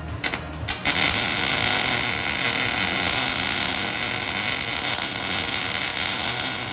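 Wire-feed welding arc striking: two brief sputtering starts, then a steady crackling hiss from about a second in as a tack weld is laid.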